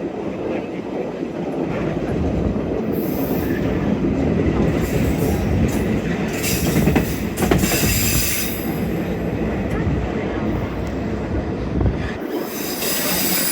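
Passenger train rolling along the track, a steady rumble of wheels on rails, with high-pitched wheel squeal coming in several times: briefly about three seconds in, for a couple of seconds around the middle, and again near the end.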